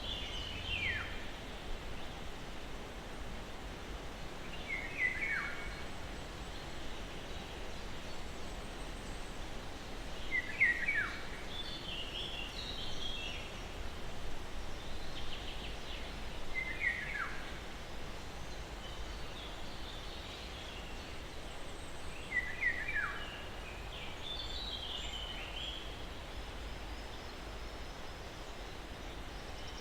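Songbirds calling in a forest over a steady low breeze. One bird repeats a short downward-sweeping call about every six seconds, and higher, quicker chirps come in between.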